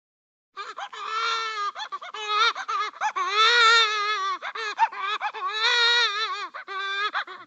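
A high-pitched voice crying in long, wavering calls broken by short gaps. It starts about half a second in.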